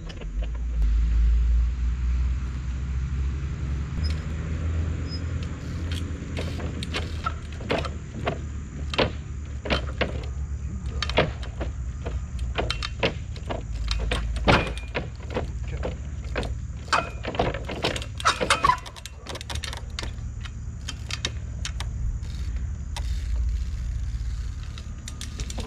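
24-inch trials bike hopping and balancing across a stack of loose wooden pallets: a run of sharp knocks and clatters of tyres and frame on the wobbling boards, densest between about 6 and 19 seconds. A low rumble runs underneath throughout.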